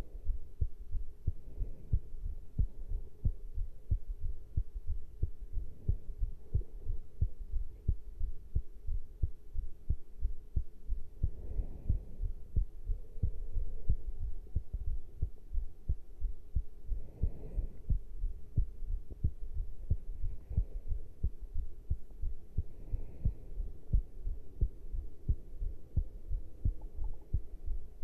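Human heartbeat recorded close to the chest after caffeine intake: a steady, even run of low thuds.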